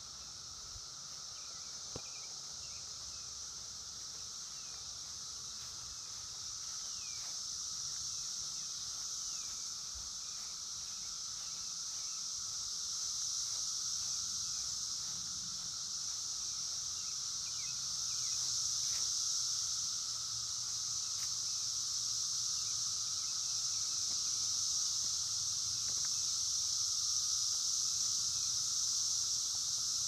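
Chorus of 17-year periodical cicadas: a continuous high-pitched drone with a fainter, lower steady hum beneath it, growing gradually louder.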